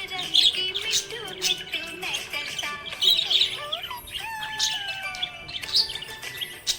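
Budgerigars chirping and warbling: fast chatter of chirps, clicks and squawks, with a long falling whistled note in the middle.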